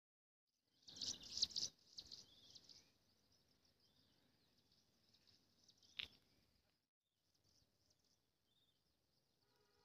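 Faint outdoor ambience of birds chirping and insects over a quiet hillside, with a brief louder burst of noise about a second in and a sharp click around six seconds.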